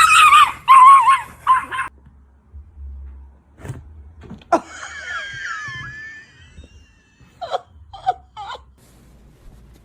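A pet animal's loud, wavering whining call for about two seconds. About four and a half seconds in there is a sharp click, then high gliding squeaky tones. Three short calls come near the end.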